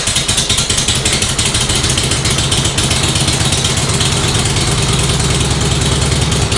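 1954 Harley-Davidson Panhead V-twin idling just after a cold start, on choke with the spark retarded. It runs a little unevenly at first, then settles into a steady idle.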